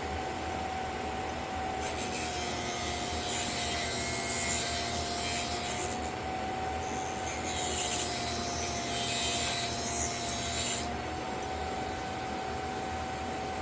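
Drill bit sharpener's motor running with a steady whine, while a drill bit is ground against its wheel in two passes of about four seconds each, one for each cutting lip. The motor's pitch drops slightly under each pass.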